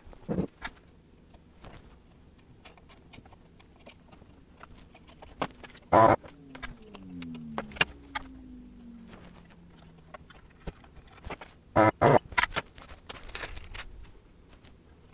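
Hand tools being handled on a workbench: scattered clicks and knocks as cutters and a screwdriver are picked up and set down, with two loud clacks about six and twelve seconds in. A faint tone slides down in pitch around the middle.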